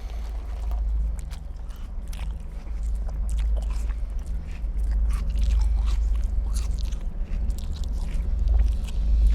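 Close, loud chewing and biting mouth noises, with wet smacks and crunches coming at irregular intervals, over a steady low rumble. They grow louder toward the end.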